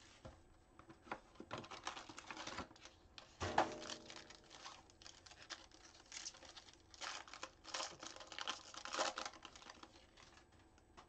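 Foil wrapper of a trading-card pack crinkling and crackling as it is torn open by hand, in quick irregular rustles and clicks, with the cards then handled.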